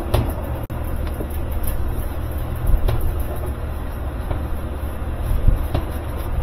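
Steady low rumble with a few light knocks and clicks.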